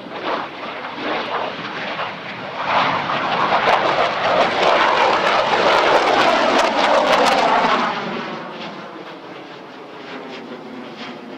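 MiG-29 fighter's twin RD-33 turbofans roaring in a fly-past. The jet roar swells to a crackling peak, then drops off about eight seconds in, its pitch falling as the jet moves away.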